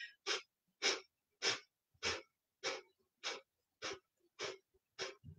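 Kapalabhati (skull shining breath): short, forceful exhales through the nose, driven from the belly, about nine in an even rhythm of a little under two a second, with a quiet reflexive inhale between each.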